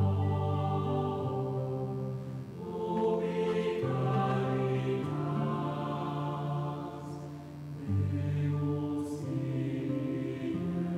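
A group of voices chanting in long, held chords, the low voices strongest. The chord changes about four seconds in and again about eight seconds in.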